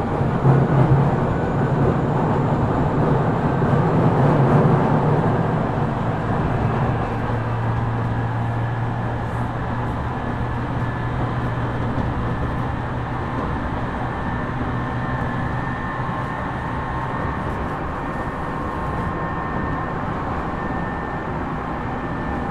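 Tokyu 5000 series electric train running, heard from inside the car: steady wheel-and-rail noise with a low motor hum that drops in pitch about seven seconds in and fades away after about seventeen seconds.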